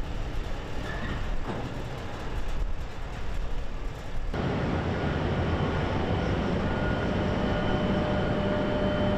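Steady mechanical rumble of heavy machinery or vehicles. About four seconds in it changes suddenly to a louder, steadier hum with faint high whines.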